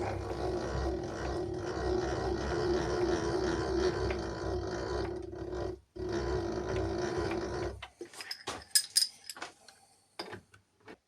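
A machine running steadily with a strong hum and a rushing noise, breaking off abruptly twice. It stops about eight seconds in, followed by a few sharp clicks and knocks.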